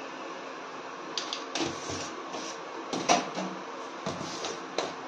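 A few light knocks and clicks of a spoon and kitchen utensils being handled around a pan on the stove, over a steady low hiss.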